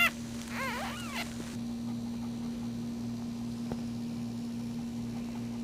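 Newborn puppy squeaking: a few short cries that rise and fall in pitch in the first second and a half, then only a steady low hum.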